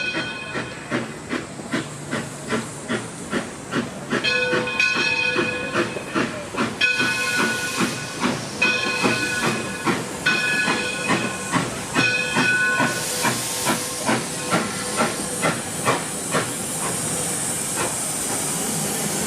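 Detroit & Lima Northern No. 7, an 1897 Baldwin 4-4-0 steam locomotive, working with steady exhaust beats about twice a second. From about four seconds in it sounds its steam whistle in about five blasts. From about thirteen seconds in a strong steam hiss takes over.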